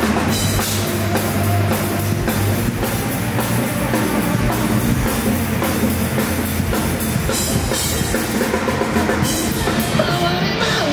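Live rock band playing loud and steady, with the drum kit to the fore.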